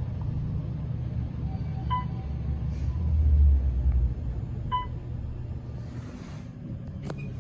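Otis traction elevator car travelling upward, a steady low rumble that swells about three seconds in and eases after four. Two short electronic beeps sound about three seconds apart.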